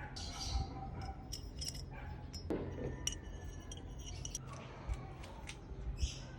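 Small metal parts and tools of a dropper seatpost clicking and clinking as they are handled, in many sharp taps, with a short hiss just after the start and another about six seconds in, over a steady low hum.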